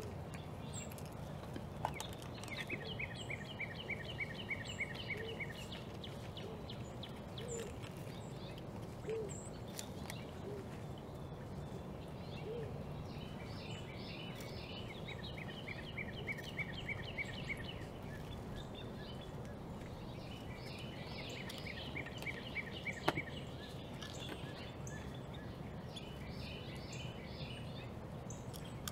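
A songbird singing a rapid trill of evenly spaced repeated notes, each phrase about three seconds long, four times over, above steady outdoor background noise with a few faint clicks.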